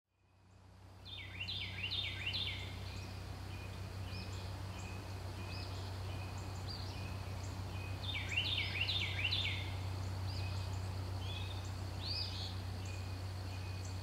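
Outdoor river ambience fading in from silence: bird calls in quick runs of downward-sliding whistled notes, twice in a cluster and singly in between, over a steady low hum.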